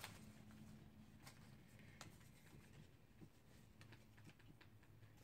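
Near silence: room tone with a few faint scattered clicks and rustles of a small paper slip being handled.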